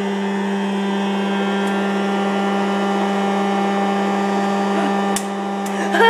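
Hot-air popcorn popper's fan and heater running with a steady hum, the kernels heating but not yet popping; two short clicks near the end.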